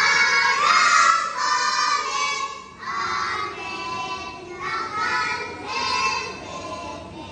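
A group of young children singing a song together, with no drum beats heard, in sung phrases that break off and restart every second or two.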